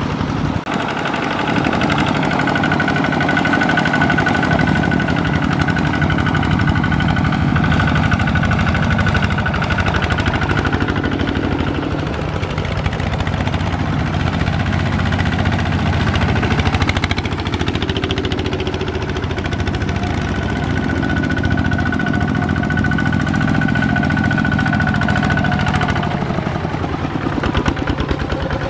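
Two-wheel walking tractor's single-cylinder diesel engine running hard with a rapid, regular chugging beat as it pulls a loaded trailer through deep mud. The engine note shifts a little in pitch through the middle.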